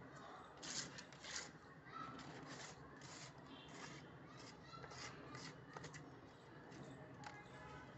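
A hand scraping and sweeping loose dry soil across a concrete floor: a faint series of short, irregular gritty scrapes, the loudest about a second in.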